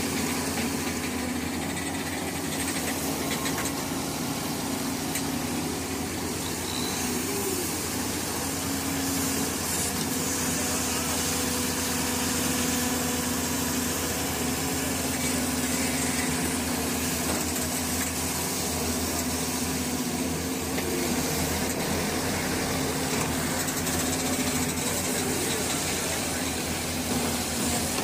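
Diesel engine of a Doosan 140WV wheeled excavator running steadily at close range, a constant drone with a low hum.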